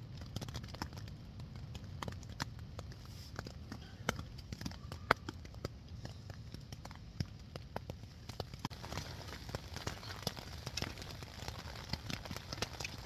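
Drips pattering irregularly on the tent's fabric, growing busier after about eight seconds, over a low steady rumble of wind.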